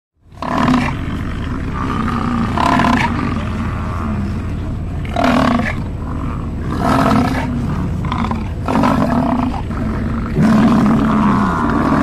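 American bison bellowing: a series of deep, drawn-out roars, one after another, over a steady low rumble.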